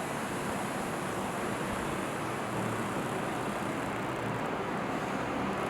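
Evaporative air cooler fan running, a steady rush of moving air.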